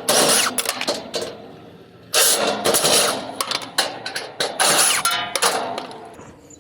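Sheet-metal clattering and scraping from a Trane HVAC condenser's top panel being worked loose and lifted off. It comes in three bursts of clanks and clicks with a metallic ring, about two seconds apart.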